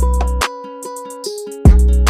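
Background music: a beat with heavy bass and quick hi-hat ticks over plucked-string chords; the bass drops out about half a second in and comes back near the end.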